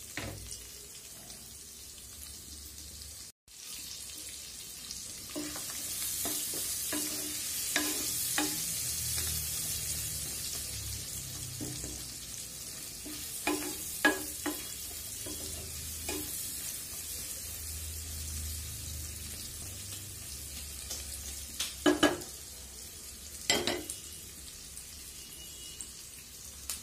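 Chopped onions and whole spices sizzling in hot oil in a frying pan. A wooden spatula stirs them, knocking against the pan in several short clusters.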